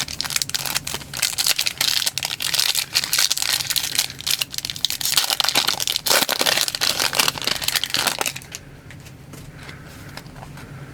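Foil wrapper of a Panini Prizm baseball card pack crinkling and tearing as the pack is ripped open, for about eight seconds before it stops.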